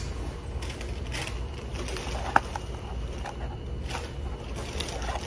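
Someone eating French fries and handling the paper fry carton, with a few soft rustles and one sharp click about two and a half seconds in, over a steady low hum.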